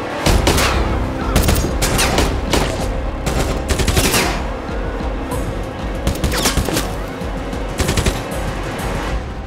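Rifle gunfire in a rooftop firefight: rapid shots in quick volleys, starting a moment in and going on to near the end, each with a short echo.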